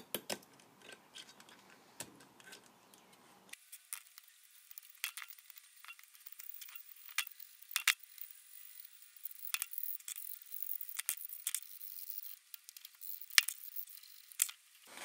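Light scraping and scattered sharp clicks at the magnet ring inside a Kohler engine flywheel, as leftover JB Weld is cleaned off the magnet surface so it will clear the stator. The sounds are thin and scratchy, with a few louder clicks near the end.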